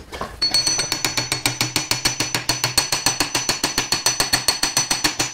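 Rapid light hammer taps on the end of an induction motor's rotor shaft, about eight a second, with a steady high metallic ring, driving the rotor bearing home into its housing.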